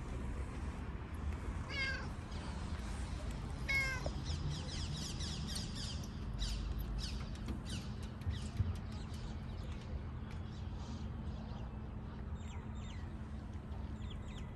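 Domestic gray tabby cat meowing twice, two short calls about two seconds apart.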